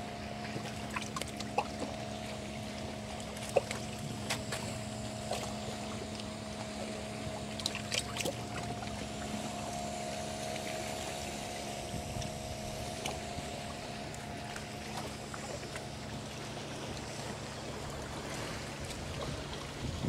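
Boat motor humming steadily over gently lapping water, with scattered light clicks; the hum fades out near the end.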